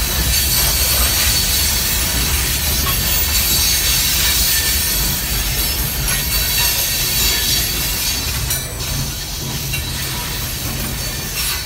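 Hopper cars of a freight stone train rolling past at close range: a steady low rumble of steel wheels on rail, with a thin high-pitched wheel squeal over it.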